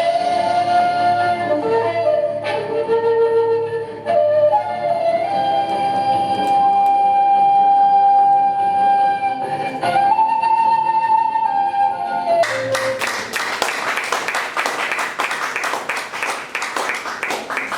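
Background music: a slow melody of long held notes, then about twelve seconds in it switches abruptly to a dense, busy passage with rapid sharp beats.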